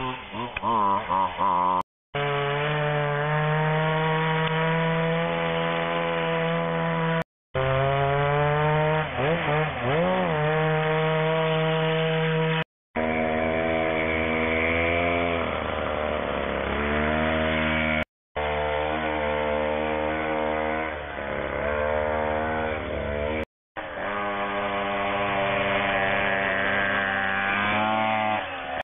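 Small two-stroke engines of gas-powered Go-Ped stand-up scooters running and revving, the pitch rising and falling with the throttle. The sound comes in six short clips, each cut off by a brief silence.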